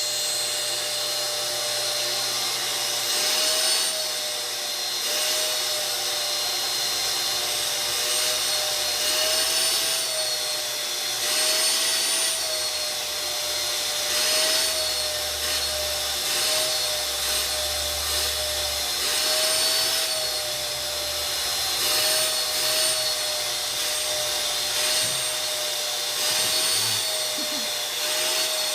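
Vacuum cleaner running steadily, its motor whine wavering slightly in pitch over a constant rushing hiss.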